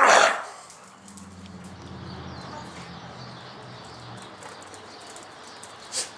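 A low steady hum with faint scattered ticks, then a single short dog bark about six seconds in.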